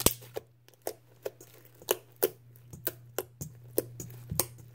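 Homemade slime being kneaded and pressed by hand in a stainless steel bowl, making irregular wet clicks and pops about twice a second, the loudest right at the start. A steady low hum runs underneath.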